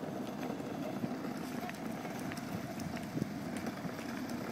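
Footsteps on a paved path, faint regular steps over a steady low outdoor rumble.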